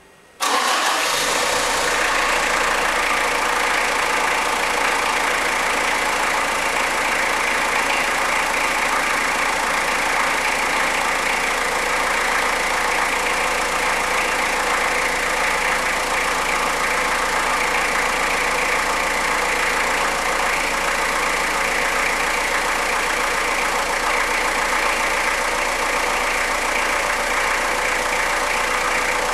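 Fiat Uno engine starting from cold about half a second in, catching at once, then idling steadily.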